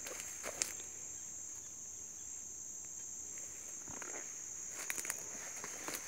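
Steady high-pitched insect chirring, with a few footsteps crunching on dry leaf litter.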